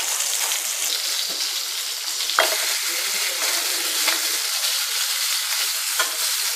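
Chilli-marinated fish pieces shallow-frying in a little oil on a flat frying pan: a steady sizzle with a few sharper crackles of spitting oil.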